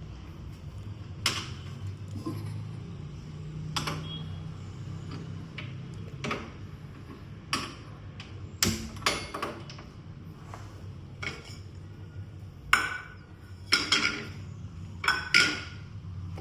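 Kitchen utensils and dishes clinking and knocking on a stovetop: irregular sharp taps, busier near the end, over a steady low hum.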